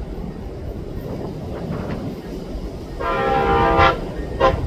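Amtrak ALC-42 locomotive's air horn sounding a chord for nearly a second about three seconds in, then a short blast, over the low rumble of the approaching train.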